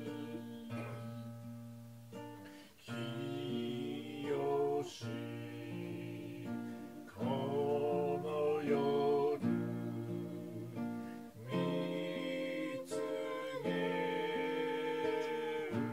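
A man and a woman singing a hymn together in slow, held notes, with a short break between phrases about two and a half seconds in.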